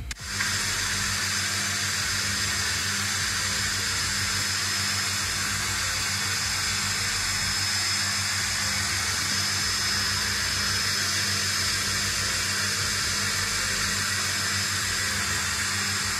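Steady rushing hiss with a low hum beneath it and a faint high whine, starting abruptly and holding an even level throughout.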